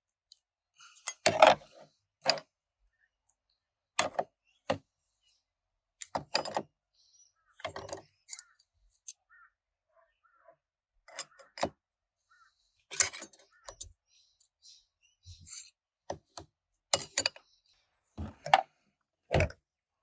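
Metal parts of a BTR four-speed automatic transmission clinking and knocking as they are handled and set down during disassembly: irregular sharp clinks, about a dozen, with short quiet gaps between.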